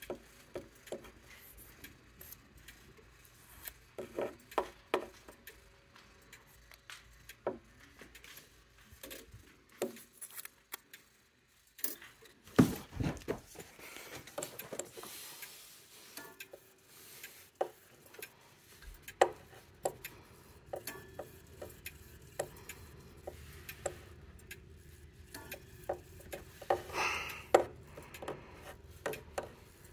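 Irregular light clicks, taps and knocks on wood and glass, a few of them louder, from handling around a grandfather clock's wooden case and glass door.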